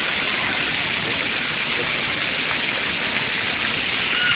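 Splash-pad water jets spraying and spattering onto the wet ground, a steady hiss.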